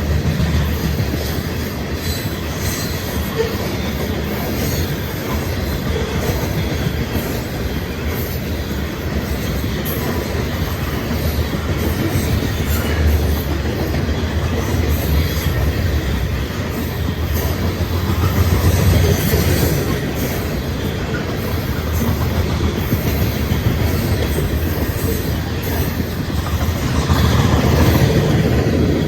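Loaded grain train's cars rolling past: a steady rumble of steel wheels on the rail, with repeated clacking as the wheels pass over rail joints.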